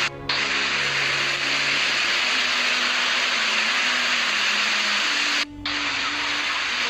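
Floodwater rushing in a steady loud roar, with soft held music notes shifting underneath; the sound cuts out briefly near the start and again about five and a half seconds in.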